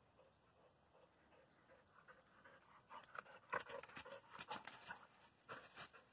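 Near silence at first; then, from about three seconds in, a blue heeler comes up close panting, with a quick, irregular run of short rustles from its paws in dry leaves.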